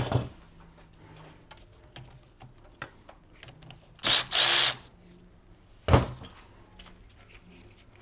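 A small cordless power tool whirs in two quick bursts about four seconds in, spinning the nut off a golf cart battery's negative (ground) cable terminal. A sharp clunk comes about two seconds later, with light clicks of tool and cable around it.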